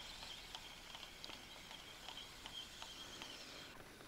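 Faint outdoor ambience by a river: a thin, high, steady buzz that stops shortly before the end, with scattered soft ticks.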